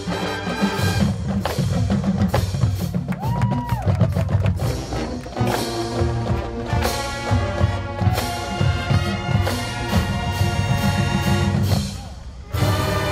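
Marching band playing: brass holding chords over drumline strikes. The sound drops away briefly near the end, then the full band comes back in.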